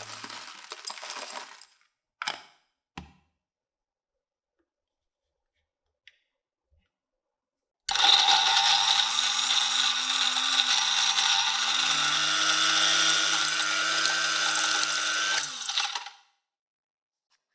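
Restored 1957 ESM Die Krone K02 electric coffee grinder: after two short clicks, its motor is switched on about eight seconds in and runs steadily for about eight seconds, grinding coffee, then stops.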